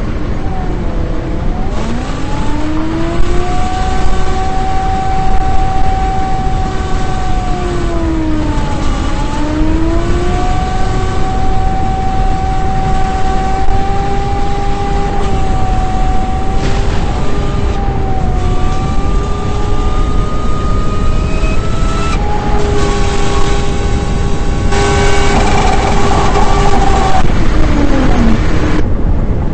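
A motor vehicle's engine running under a loud rumble of road and wind noise. Its pitch rises as it accelerates about two seconds in, dips briefly around nine seconds, holds steady, and falls away near the end.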